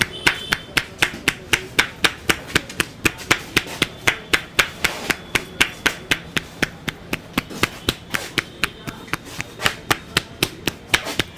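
A barber's hands striking a person's head in a rhythmic percussive massage, a fast even series of sharp slaps at about four or five a second.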